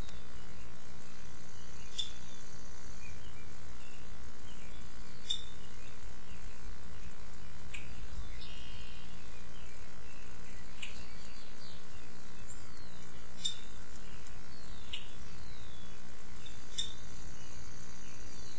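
Birds chirping and calling in the trees: scattered short high chirps and a few downward-sliding calls, over a steady low rumble.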